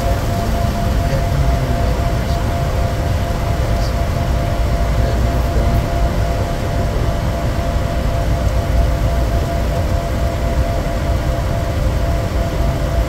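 Steady cabin noise inside a Bombardier Challenger 350 business jet on approach: a deep rumble of airflow and its two rear-mounted Honeywell HTF7350 turbofans, with two steady mid-pitched tones over it.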